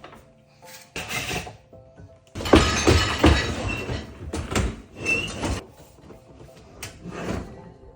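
Irregular clattering and clinking of dishwasher parts being handled, in several bursts with the loudest cluster about two and a half seconds in, over background music.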